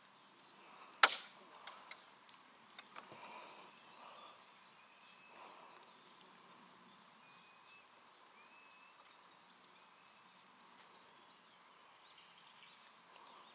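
Faint bird chirps over quiet outdoor ambience, with one sharp click about a second in and a few fainter ticks over the next two seconds.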